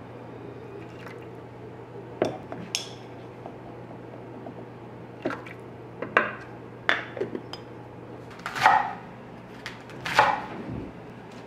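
Kitchen dishes and utensils clinking and knocking as they are handled, a few scattered strokes with two longer, noisier sounds near the end, over a steady low hum.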